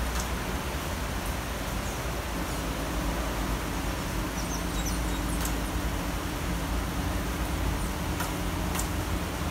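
Steady city rain with a constant low rumble of traffic underneath, and a few short high chirps about halfway through and again near the end.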